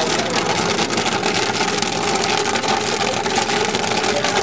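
Popcorn popping in a commercial popcorn machine's kettle: a dense, rapid crackle of kernels bursting as the full kettle overflows with popped corn, over a steady mechanical hum from the machine.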